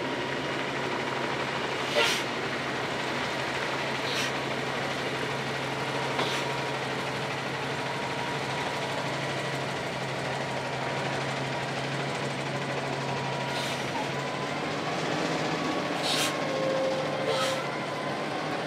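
Kenworth K104B prime mover's diesel engine running steadily as the oversize road train with its multi-axle low loader rolls slowly past. A few sharp clicks break through, the loudest about two seconds in.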